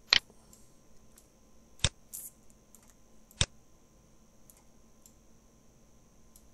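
Computer keyboard and mouse clicks: three sharp clicks about a second and a half apart, with a few fainter ticks between them.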